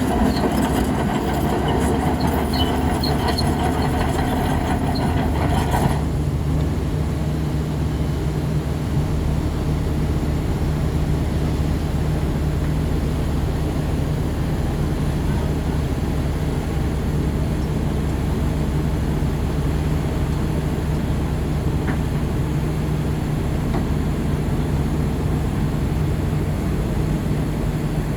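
Bulldozer diesel engine running steadily under load. For the first six seconds metallic clanking and squeaking, typical of crawler tracks, sounds over it, then stops abruptly and leaves the steady engine hum.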